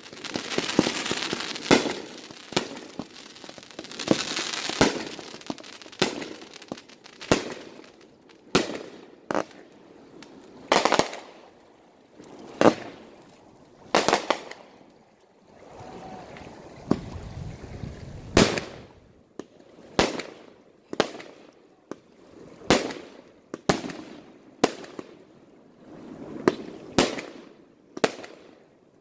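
Aerial fireworks firing in quick succession: sharp bangs of launches and bursts about once a second, with crackling early on and a low rumble in the middle.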